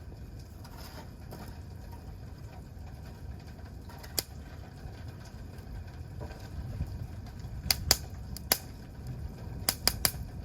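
Wood campfire crackling: sharp pops of burning wood, one about four seconds in and several in quick succession near the end, over a low steady rumble.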